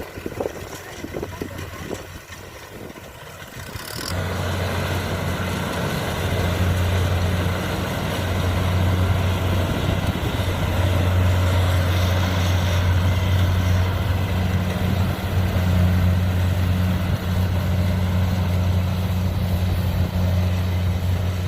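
Kubota DC70 combine harvester running with a steady engine hum, which comes in suddenly about four seconds in after a quieter stretch.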